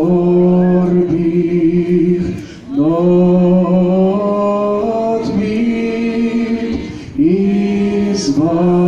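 A crowd of people singing a slow hymn together without accompaniment, in long held notes, with short breaks between phrases about two and a half and seven seconds in.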